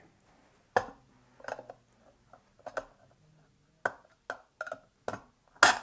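Flathead screwdriver prying at the black retaining ring around a floor pump's pressure gauge. It makes a series of irregular sharp clicks and small scrapes, the loudest near the end.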